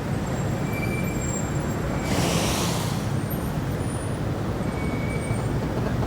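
Steady rumble of road traffic, with a brief hiss about two seconds in.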